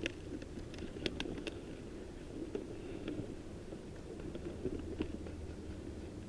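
Faint rustling with scattered light clicks and ticks of a person crawling over the ground in airsoft gear, a small cluster of clicks about a second in.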